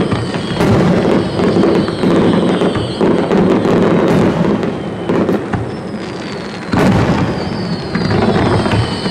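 Fireworks display: aerial shells bursting in a dense string of booms and crackles, with a big boom about seven seconds in. High whistles falling in pitch sound over it near the start and again near the end.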